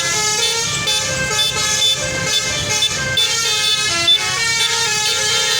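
Bus basuri (telolet) musical air horn playing a tune: a quick, unbroken run of pitched notes stepping up and down, over a low rumble.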